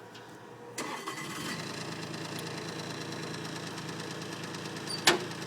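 Bobcat skid-steer loader's engine starting up about a second in, then running steadily. A sharp click near the end.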